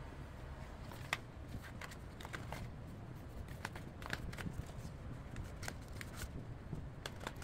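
Irregular sharp clicks and light crackles from something being handled, scattered over several seconds above a steady low hum.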